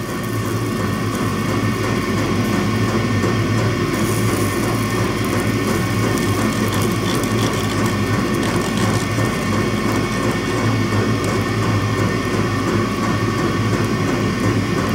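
Electric soldering gun switched on and humming steadily as it heats a joint on thick copper cable, which the user doubts it can get hot enough.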